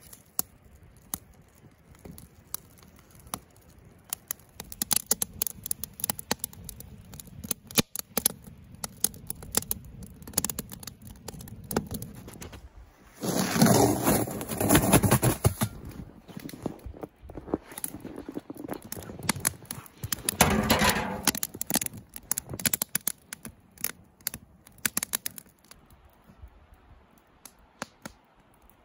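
Kindling fire in a steel fire ring crackling, with many sharp pops and snaps. Twice, about halfway through and again a few seconds later, there is a louder stretch of crunching and scraping in snow around a snow-covered steel mesh grill grate.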